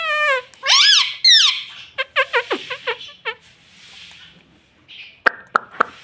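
Indian ringneck parakeet calling in its talking voice: a long drawn-out call, then two arching calls and a run of quick short chirps around the middle. A few sharp clicks follow near the end.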